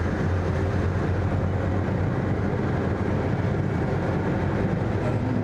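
Steady low rumble of a moving car's engine and road noise.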